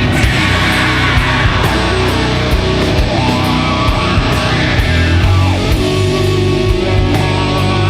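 Doom metal music: heavily distorted electric guitars and bass over drums, with regular cymbal hits.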